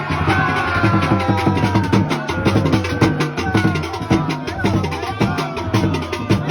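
Music with a steady drum beat and gliding melodic lines over it.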